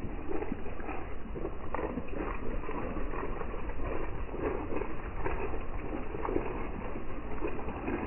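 Rain pattering steadily on leaves and the ground: a dense, irregular spatter of drops over a low rumble.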